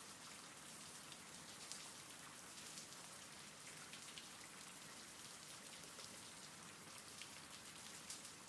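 Faint steady rain: a soft even hiss with scattered patter of drops.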